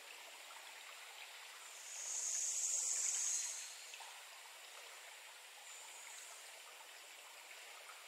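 Shallow creek running, a steady faint rush of water. A louder, high-pitched hiss swells and fades about two seconds in, with a fainter one near the end.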